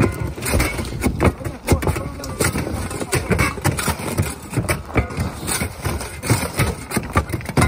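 Roofing shovels scraping and prying old asphalt shingles off a plywood roof deck, with many irregular scrapes and knocks as loose shingles clatter down.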